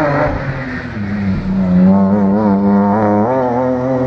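Rally car engine running hard on approach, its pitch climbing, wavering and stepping up and down as the driver works the throttle and gears.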